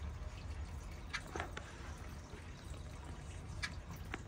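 Water dripping, a few separate drips or small wet clicks over a low steady hum.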